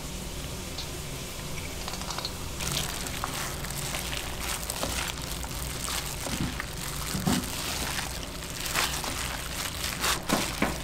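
Kitchen food-preparation sounds: food and utensils being handled, with a run of sharp knocks and clicks near the end, over a steady low hum.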